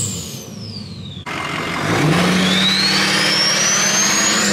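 Diesel pickup engine coming off a rev, its turbo whistle falling in pitch. After a sudden cut, a Ford Super Duty diesel with exhaust stacks is held at high revs, with its turbo whistle rising steadily as the turbo spools up, rolling black smoke.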